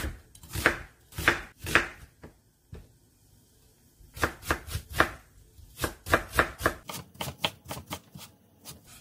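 Chef's knife cutting an onion on a wooden cutting board. A few slow slicing strokes, a pause, then faster mincing strokes at about four a second.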